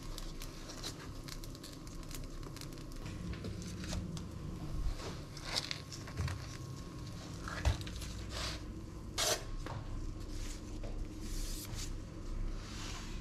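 Kitchen handling sounds: a silicone spatula scraping and tapping in a nonstick frying pan and food being set down on a wooden cutting board, heard as a scattering of short scrapes and soft knocks.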